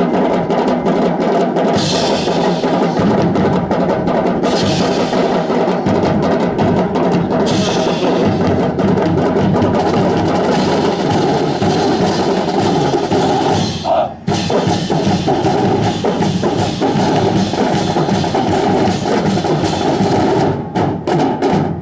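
A marching band's drum section plays a percussion solo on bass drums, snare drums, cymbals and tom-toms in a fast, driving rhythm. Cymbal crashes ring three times in the first half, and there is a brief break about two-thirds of the way through.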